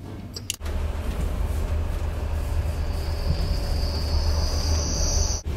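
Passenger train moving, heard from inside the carriage: a steady low rumble with running noise. About three seconds in a high-pitched squeal comes in, which cuts off suddenly near the end.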